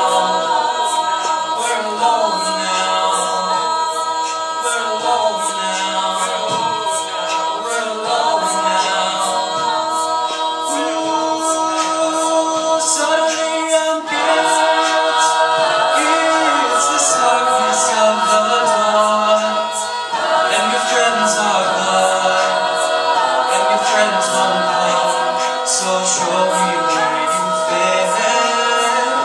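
An a cappella vocal group singing wordless sustained chords, with a steady run of sharp high ticks keeping time over them.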